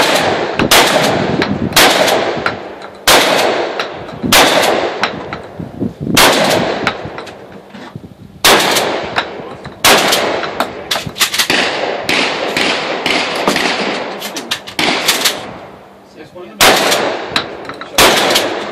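Shotgun fired in a long string of shots, about one a second with a few short pauses, each shot ringing on.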